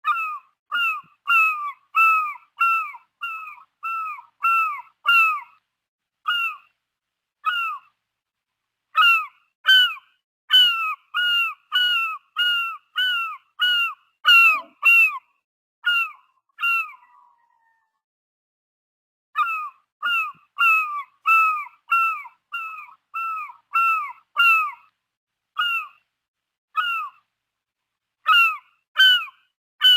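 A seagull calling over and over: short calls that arch and fall in pitch, about two a second, in runs broken by short pauses, the longest about two seconds just past the middle.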